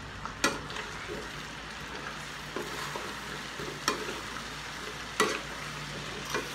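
Chicken and vegetables sizzling in a wok while a spoon stirs them, scraping through the food, with about four sharp knocks of the spoon against the wok.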